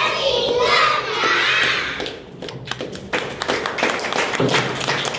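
A loud, high voice calling out with rising and falling pitch, then a crowd clapping irregularly from about three seconds in.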